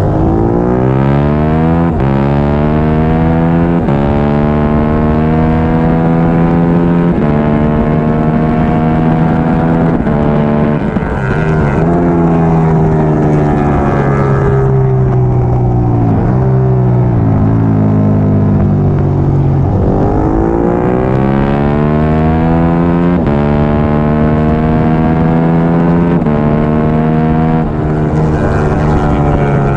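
Triumph Daytona 675R inline-three racing motorcycle engine at full race pace, revving up and snapping through quick upshifts, then dropping through the gears under braking about halfway through before pulling hard up through the gears again.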